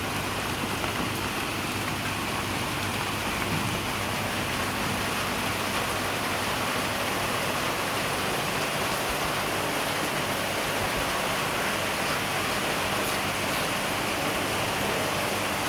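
Steady, even rushing hiss that holds unchanged throughout, with a faint low hum beneath it.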